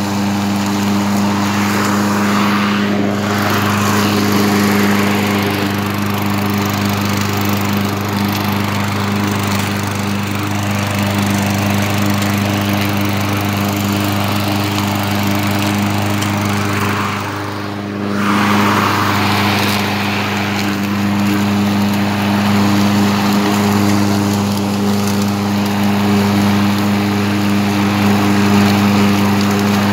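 2012 Craftsman walk-behind lawn mower's single-cylinder engine running steadily while the mower is pushed through grass, mowing. The sound dips briefly about two-thirds of the way through, then picks back up.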